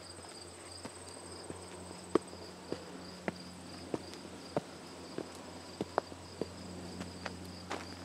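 Insects trilling steadily in a high, pulsing chorus, a second, higher insect tone stopping about two seconds in, over footsteps on a dirt trail. The steps fall as sharp ticks about every half second to second and are the loudest sounds.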